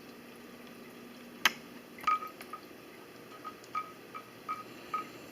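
A single sharp click, then a few irregular small water drips plinking, one at a time, into a fish tank.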